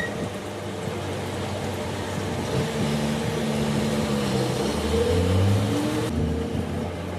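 Yamaha R15's single-cylinder engine running, its revs rising and falling a few times in the middle.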